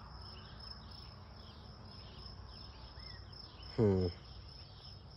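A continuous high-pitched cricket trill over a low outdoor hum. About four seconds in, a man gives a single short 'hmm'.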